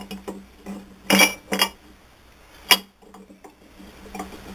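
Bull gear and cone pulley of a South Bend 9A lathe clinking against the spindle and headstock as they are worked onto the spindle by hand: a few sharp metallic clinks, the loudest about a second in and near three seconds in.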